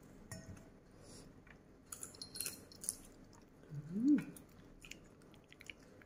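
A person chewing and biting into seafood (squid and prawns) with soft, wet mouth clicks and smacks. About four seconds in comes a short hummed "mm" that rises and falls in pitch.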